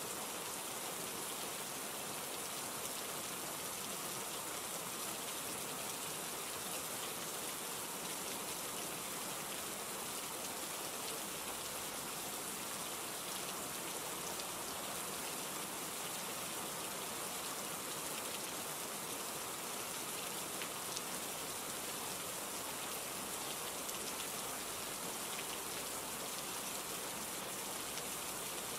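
Steady rain falling, a constant hiss with scattered drops pattering on a surface.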